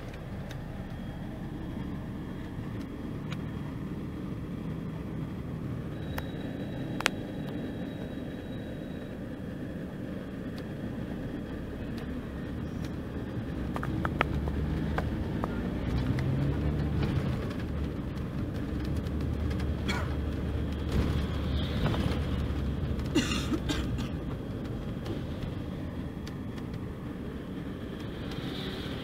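Mercedes-Benz OC-500RF-1842 coach's diesel engine running under way: a steady low drone that swells and climbs in pitch about halfway through, as the engine works harder. A few sharp clicks and rattles sound over it.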